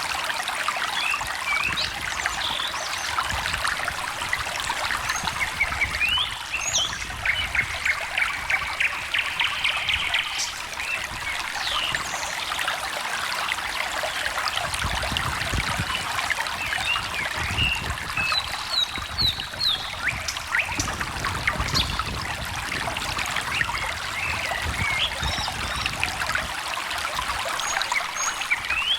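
A small stream trickling and splashing steadily over stones, with many short bird chirps and calls scattered over it.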